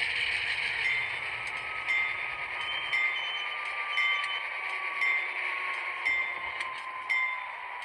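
Rapido N scale BC Rail C40-8M model's DCC sound decoder ringing a locomotive bell about once a second over the diesel engine sound, whose pitch slowly falls as the model slows. The low rumble of the model rolling on the track stops about three seconds in as it comes to a halt.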